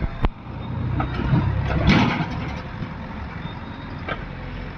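Heavy diesel machinery running with a steady low rumble. A sharp knock comes just after the start, and a short burst of rough, rushing noise about two seconds in.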